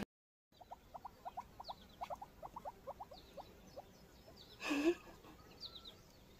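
Guinea pig squeaking: a fast run of short, faint, falling squeaks, several a second, with one louder call later on.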